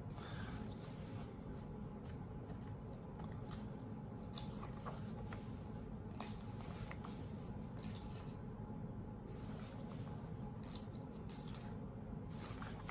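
Pages of a large hardcover art book being handled and turned: soft paper rustles and a few faint light ticks over a steady low room hum.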